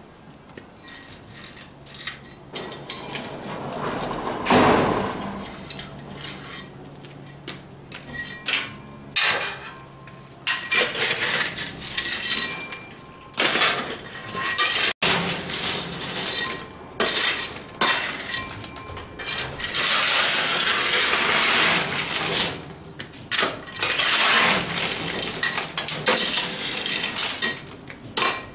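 Lumps of coal clattering and scraping against a steel coal-forge shovel as it digs into and shifts the coal in the forge hearth, in repeated bursts of a second or two.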